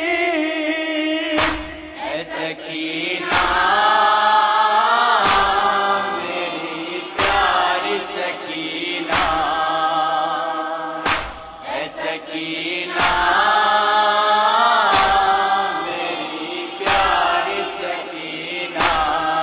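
Nauha (Shia lament) chanted by young male voices, with a sharp unison beat about every two seconds: the hand-on-chest strikes of matam keeping time.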